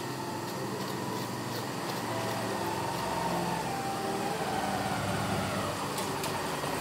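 Motorcycle engine running as the bike rides slowly in, getting louder about halfway through.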